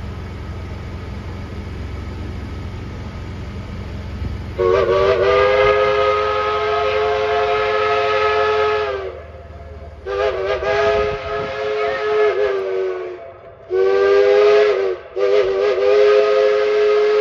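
Dollywood Express steam locomotive's chime whistle blowing several notes at once. It sounds four blasts: a long one starting about four and a half seconds in, then a shorter one, a brief one, and a last one still sounding at the end. Before the whistle there is a steady low rumble.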